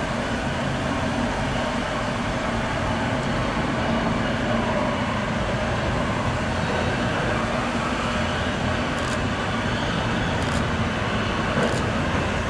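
Kawasaki R211 subway train approaching along the tunnel track into the station: a steady rumble of wheels on rail with a low hum running under it. A few sharp clicks come near the end as it draws closer.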